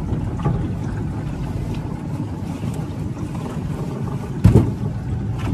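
Small boat's outboard motor running slowly, with wind on the microphone. One loud knock near the end.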